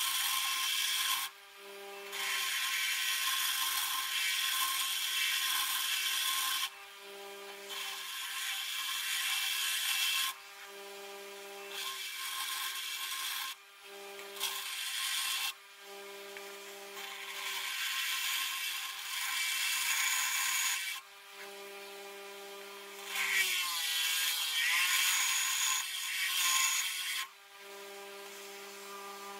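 Bench grinder running with a steady motor hum. The steel head of a blacksmith's chisel hammer is pressed against the abrasive wheel in repeated passes of a few seconds each, giving a hissing grind broken by short pauses. Near the end the piece is lifted off and only the motor hum remains.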